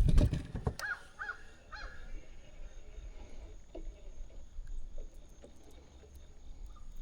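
Water splashing briefly at the start, likely a hooked crappie at the surface, then a bird calls three short notes in quick succession about a second in. After that only faint knocks.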